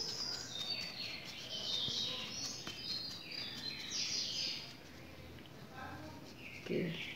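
Small birds chirping, a quick run of short, high, falling chirps, densest in the first few seconds and thinner later.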